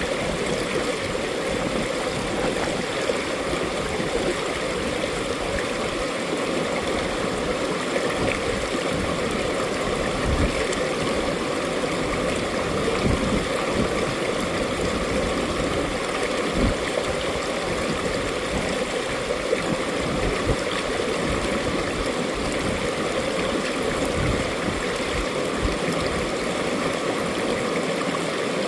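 Mountain stream rushing and gurgling over rocks, a steady flow with small splashes now and then.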